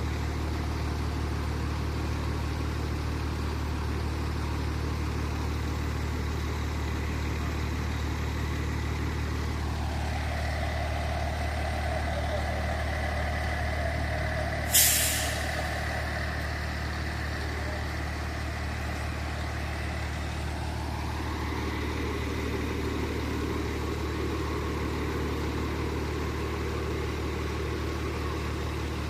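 Heavy fire truck engine idling steadily, its note dipping and rising again over about ten seconds. About halfway through comes a single short, sharp hiss of air brakes.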